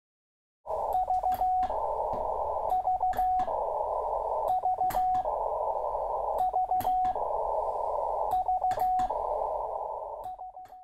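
Morse code heard on a ham radio receiver. A single beep tone keys out a quick group of short beeps ending in a longer one, about every two seconds, with the hiss of a narrow receiver filter filling the gaps between groups. It fades out near the end.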